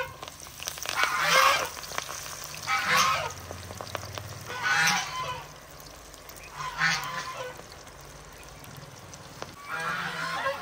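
Honking calls from fowl, about five short calls a couple of seconds apart.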